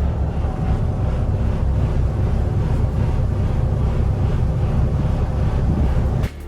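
Twin engines of a 2000 Pursuit 3400 cruiser running at low speed underway, a steady low rumble; it cuts off suddenly near the end.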